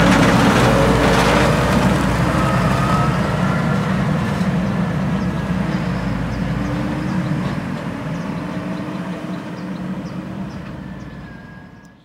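Tractor engine running as the tractor and its loaded tipper trailer pass close by, then grow fainter as they drive away down the lane.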